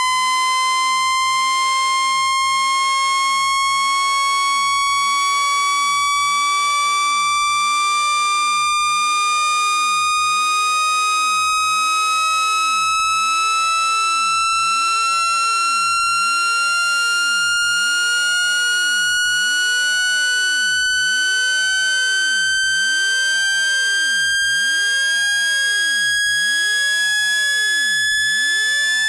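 Synthetic electronic tone with strong overtones, held at a steady level and gliding slowly and evenly upward in pitch, from a high tone to a higher one. It is a water-ejection tone, played loud through a phone speaker to shake trapped water out.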